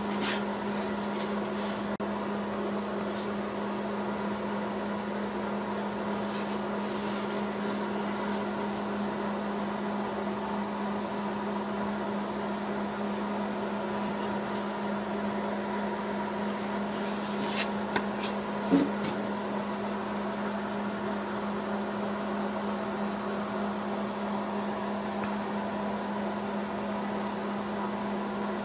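Steady electrical machine hum throughout, with a few light knocks and clicks from the wooden clock case being handled and turned over. The loudest knocks come in a short cluster about two-thirds of the way through.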